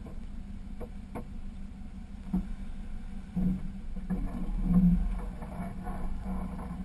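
Off-road vehicle's engine running low and steady while crawling over rock, with a few sharp knocks scattered through and a louder surge about five seconds in.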